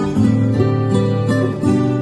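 Background instrumental music on plucked strings, its notes changing every fraction of a second.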